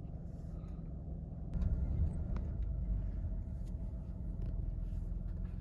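Low rumble of a car driving, heard from inside the cabin, growing louder about one and a half seconds in.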